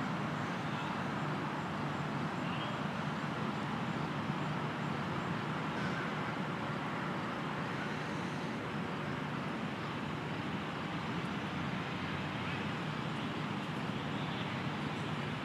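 Steady, even rushing outdoor background noise at a constant level, like distant road traffic.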